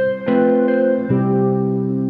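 Instrumental soundtrack music of held, sustained chords, the chord changing about a quarter second in and again about a second in.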